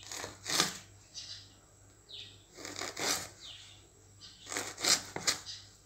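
Kitchen knife slicing ivy gourds lengthwise into thin strips on a wooden cutting board: a string of short, crisp cuts with the blade tapping the board, coming in uneven clusters.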